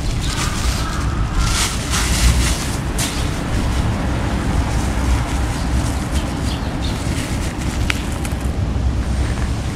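Outdoor ambience: a steady low rumble of wind and distant traffic, with a few faint rustles in the first few seconds.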